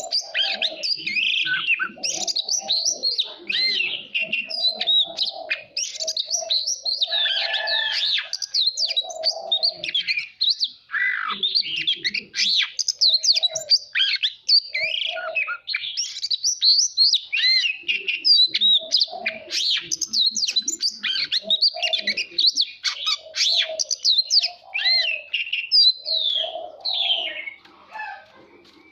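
Oriental magpie-robin singing a long, continuous song of rapid, varied whistles, slurred glides and trills. A lower note repeats again and again beneath it.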